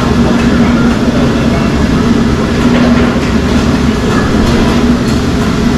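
Steady, loud machinery noise with a constant low hum and a few faint clicks.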